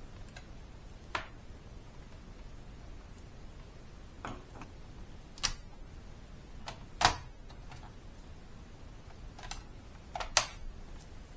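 Sharp plastic clicks and snaps of laptop parts being fitted back together as the keyboard is pressed into its clips and the battery is slotted in. There are about seven separate clicks, the loudest about seven and ten seconds in.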